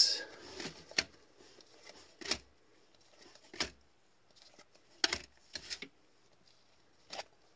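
Hockey trading cards being slid one by one off the front of a stack in gloved hands, each card giving a short crisp flick or snap, about six of them spaced a second or so apart.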